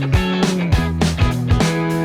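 Background music: an upbeat rock-funk track with guitar, bass and a steady drum beat.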